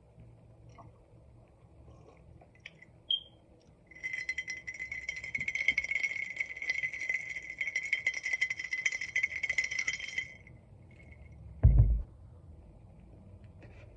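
A dense rattling buzz that starts about four seconds in and stops about six seconds later, then a single heavy thud near the end as a ceramic mug is set down.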